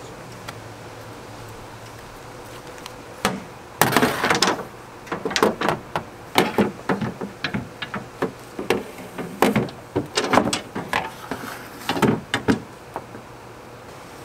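Anchor poles being handled in an aluminum jon boat: a run of sharp knocks and clatters as the poles strike the hollow aluminum hull and are set into their holders. It starts a few seconds in and stops just before the end.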